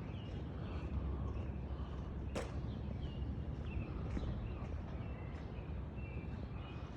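Outdoor ambience: a steady low rumble with scattered short bird chirps, and a single sharp click about two and a half seconds in.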